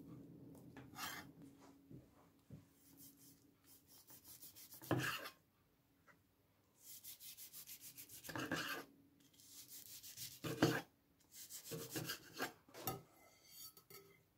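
Long carving knife sawing through the crisp skin and meat of a roast duck breast in quick back-and-forth strokes, with a few sharp knocks of the blade on a plastic cutting board.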